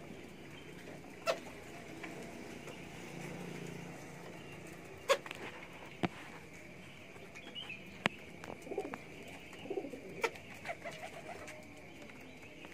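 Domestic pigeons cooing, with a low drawn-out coo about three seconds in and shorter calls later. Several sharp clicks or knocks are scattered through.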